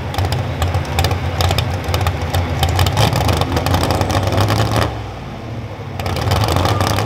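Modified four-wheel-drive pulling truck's engine running loud and rough at a lumpy idle, with a rapid crackle on top. It drops off for about a second around five seconds in, then comes back up.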